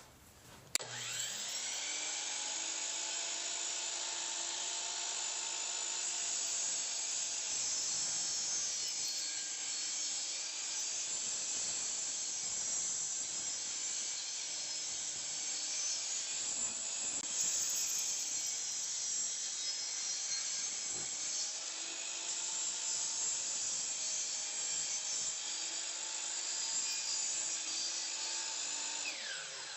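Electric power tool starting up, then running under load through wood for a long stretch, its whine dipping and recovering as it cuts, and winding down with a falling pitch near the end.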